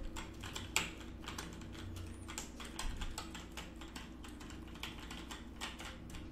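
Typing on a computer keyboard: a run of irregular key clicks, with one sharper click about a second in.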